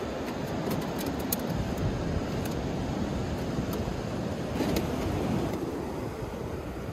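Wind buffeting the microphone over the steady wash of ocean surf, with a few light clicks.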